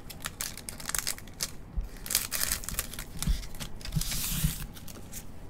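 Foil wrappers of 2023 Bowman baseball card packs crinkling and rustling as they are handled in gloved hands, in short crackly bursts, with a few soft knocks as packs are set down on the table about three to four seconds in.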